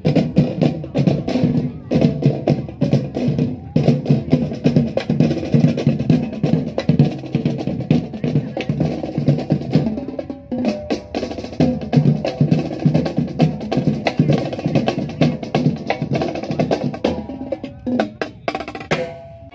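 Drum troupe playing snare-type drums in a fast, driving rhythm of sharp strokes and rolls, with a brief break about ten seconds in.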